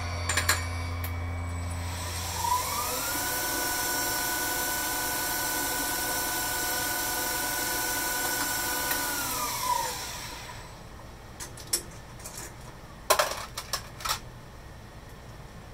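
11×26-inch metal lathe's spindle starting with a rising whine, running steadily for about seven seconds, then winding down to a stop. Several sharp metallic clinks follow near the end as tooling and parts are handled.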